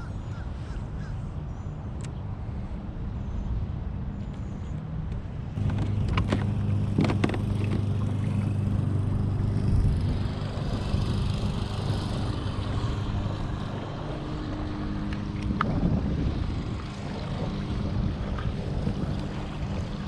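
A steady low motor hum that grows louder about six seconds in, with a few sharp clicks.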